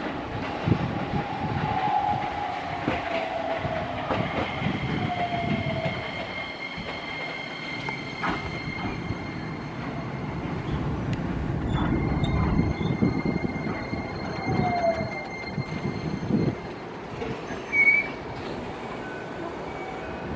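Keikyu New 1000 series electric train pulling into the platform and braking to a stop: the rumble of the cars, a motor whine falling in pitch as it slows, and a long steady high squeal from the wheels on the curve. A short high chirp comes near the end.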